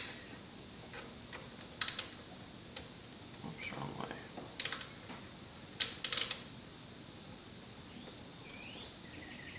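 A few light clicks and taps in three scattered groups as a serpentine belt is worked by hand over the engine's pulleys.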